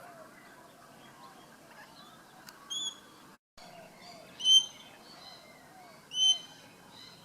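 Parrot calling: three loud, short whistled notes about every two seconds, over fainter bird calls.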